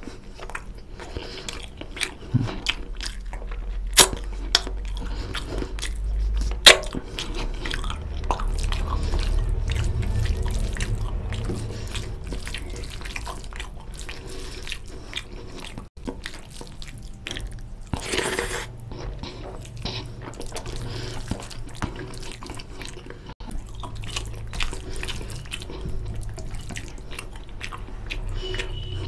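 Fingers kneading rice into oily fish curry gravy on a plate: wet squishing, with a few sharp clicks.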